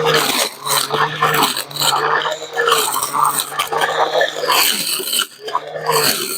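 Battery-powered brush cutter with a rotating blade cutting grass, its motor tone rising and falling about once a second as the head is swept back and forth, with the rustle and crackle of grass being cut.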